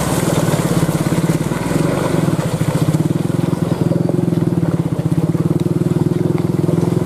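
Mitsubishi Canter truck's diesel engine pulling steadily at low speed under a full load of oil-palm fruit bunches, a fast even throb.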